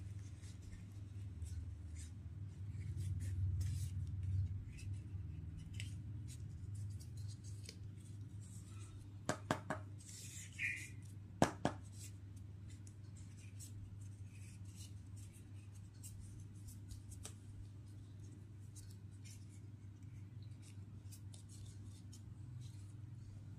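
A steady low hum, with a few sharp clicks or taps about halfway through and a brief high squeak among them.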